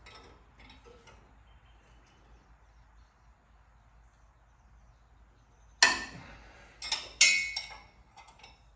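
Metal clanking from an open-end wrench and the flex plate bolts while the flex plate is taken off a Ford 351 Windsor: a quiet stretch of faint tinkering, then about six seconds in several sharp clanks and clinks, one ringing briefly.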